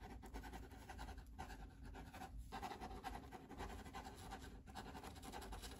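Faint pen scratching on paper as a phone number is written down.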